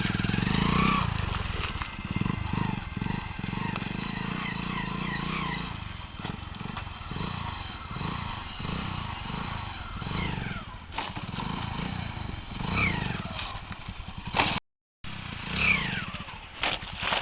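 Motorcycle engine running and revving repeatedly as the rider pulls wheelies, lifting the front wheel. The sound cuts out completely for a moment near the end.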